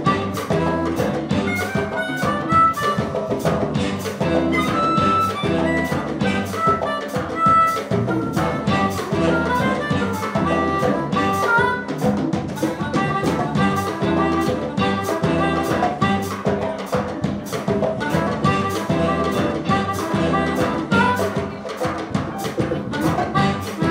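Live jazz-funk band playing an instrumental: harmonica and saxophone over electric bass and drum kit, with a steady beat.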